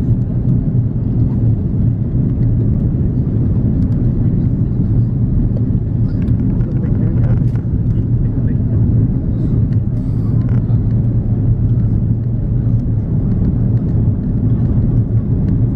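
Steady low rumble of cabin noise inside an Airbus A340-300 during its descent to land, the airflow and its four CFM56 turbofan engines heard from a window seat over the wing.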